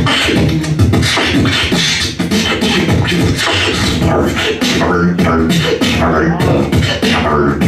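A beatboxer performing into a handheld microphone through a PA system. He makes fast, steady rhythms of drum-like kicks, snares and hi-hat hisses, with pitched vocal tones woven under them.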